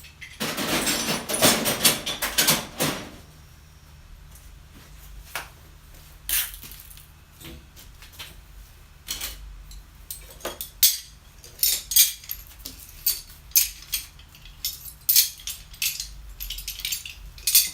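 Steel C-clamps clanking and clinking against one another as a pile of them is handled and gathered up. A dense clatter comes first, then a run of separate sharp clinks.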